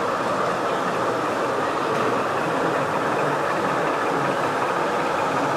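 O gauge model train running steadily along the layout's track: an even rumble of wheels on rail.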